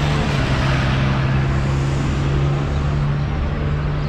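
A vehicle engine running steadily: an even low hum over a wide rushing noise, with no change in pitch or level.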